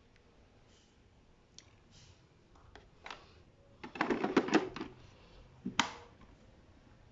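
Plastic parts of a robot vacuum being handled: a few faint clicks, then a burst of rattling clicks about four seconds in and a single sharp click shortly after, as a tank or dustbin is fitted into the body.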